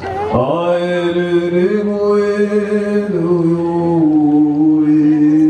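A man's voice chanting one long held note that steps up a little in pitch and then settles back down.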